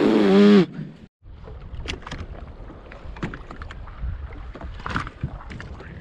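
Small waves lapping against the hull of a small fishing boat, with scattered light knocks and ticks. A short loud vocal exclamation comes at the very start, and the sound drops out for a moment about a second in.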